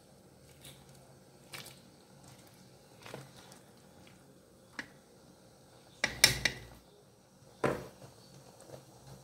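A ladle moving in a pot of thick goat curry: faint scattered clicks, then two louder clatters about six and seven and a half seconds in.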